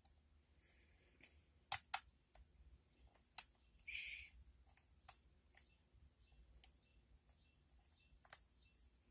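Lock pick and tension wrench working the pins of a K1 Locks "Docking" lock: faint, irregular metallic clicks, a few sharper ones about two seconds in, and a brief scrape about four seconds in.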